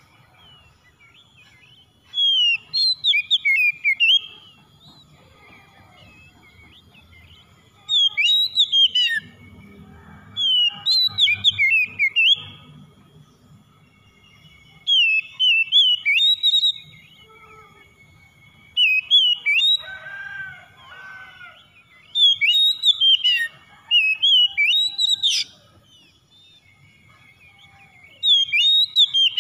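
Oriental magpie-robin singing: loud phrases of rapid whistled notes sweeping up and down, each phrase one to three seconds long, repeated every few seconds with short pauses between.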